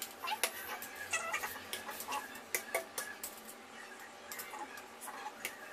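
A metal knife clicking and scraping against a ceramic plate as meringue is spread over a cake, with short animal calls in the background.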